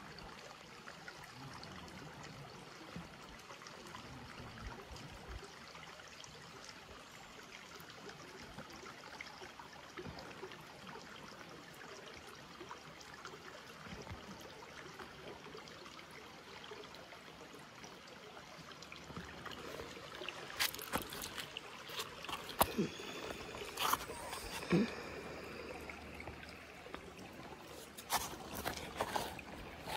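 Faint, steady trickle of running stream water, with a few sharp clicks and knocks in the last third.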